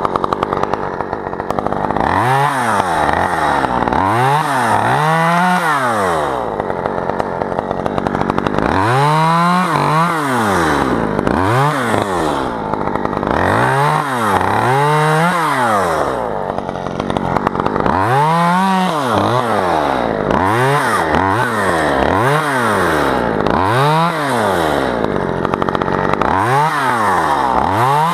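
Husqvarna top-handle chainsaw revving up and down over and over, each rise and fall of engine pitch lasting about a second, as it is worked on tree limbs.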